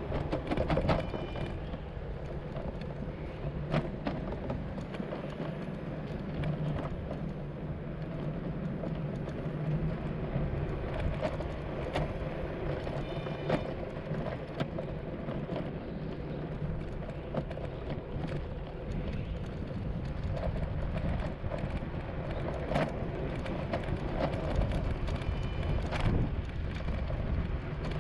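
Outdoor street ambience: a steady low rumble with scattered clicks and knocks, and a few brief high chirps.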